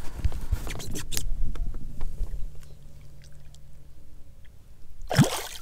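Scattered clicks and knocks of handling on a small fishing boat as an undersized speckled trout is put back in the water, thinning out after about two seconds to a faint steady low hum.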